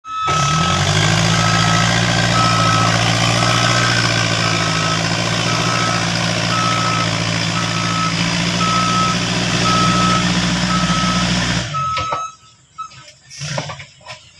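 Earthmoving machine's diesel engine running steadily while its reversing alarm beeps about once a second. Both cut off suddenly about twelve seconds in, leaving only a few faint knocks.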